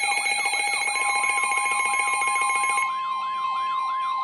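Electronic weather-alert alarms sounding together: a fast repeating sweeping siren tone, about four sweeps a second, over several steady high tones that stop about three seconds in. About a second in, a single steady tone joins. This is the NOAA Weather Radio warning alarm tone (1050 Hz) that comes before a broadcast warning.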